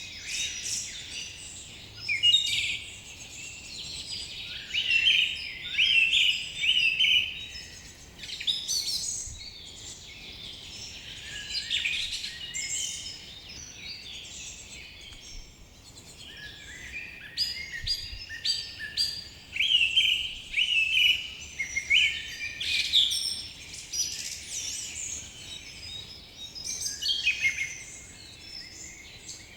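Several songbirds singing and calling in a forest chorus, with overlapping quick chirps and warbled phrases coming in repeated bursts over a faint background hiss.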